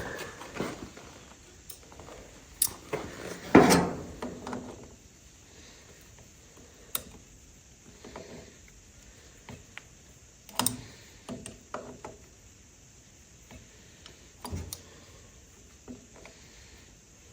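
Scattered clicks, knocks and clanks of hand tools and metal parts being handled during tractor work. The loudest clatter comes about three and a half seconds in, with single knocks later on.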